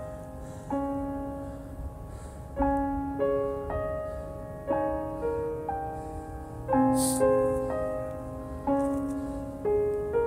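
Background piano music: chords struck every second or so, each one dying away.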